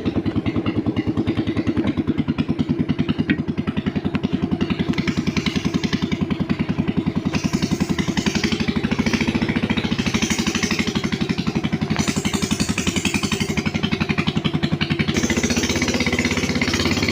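Boat engine running steadily under way, with a fast, even pulsing beat, and a hiss of spray and wind that swells and drops above it.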